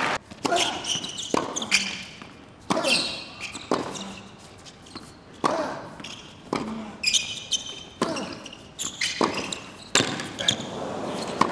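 Tennis ball struck by rackets and bouncing on a hard court during a rally, a string of sharp pops roughly a second apart echoing in the arena, with short shoe squeaks between them.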